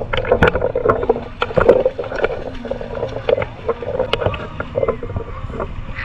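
Pool water lapping and sloshing against a camera held at the waterline, with many small irregular splashes.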